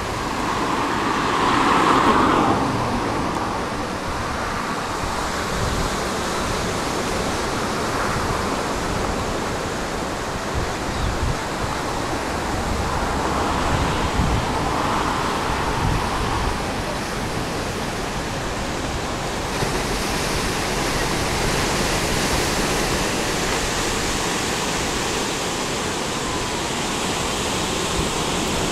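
Steady rush of wind buffeting the microphone over the wash of ocean surf breaking below, swelling louder about two seconds in.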